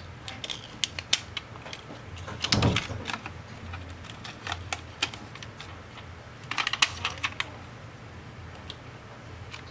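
Light clicks and taps of small tools and phone parts being handled on a workbench during a phone screen repair, scattered through, with two busier clatters about two and a half and seven seconds in, over a low steady hum.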